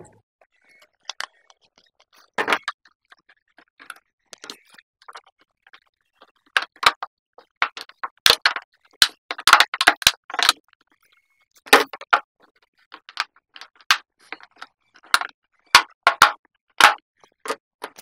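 A hand screwdriver drives screws back into the plastic bottom cover of an electric water heater, making irregular clicks and scrapes.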